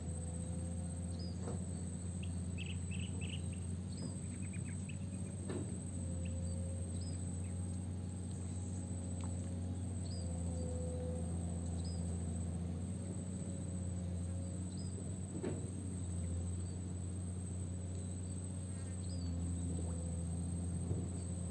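Outdoor pond-side ambience: a steady high insect whine over a steady low hum, with a bird giving a short high chirp every few seconds.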